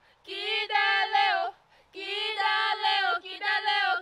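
Young women's voices singing a chant-like song: two sung phrases with a short breath between them.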